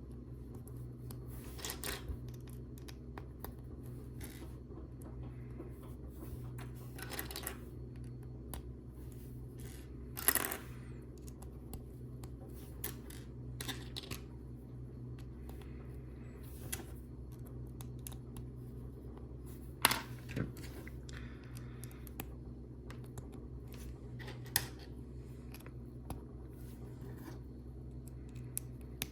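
Plastic LEGO bricks clicking and clattering as pieces are picked out and pressed together, in scattered clicks, the loudest about ten and twenty seconds in, over a steady low hum.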